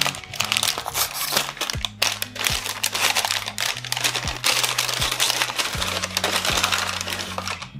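Brown paper bag crinkling and rustling as it is handled and opened around a potted plant, over background music with a steady beat.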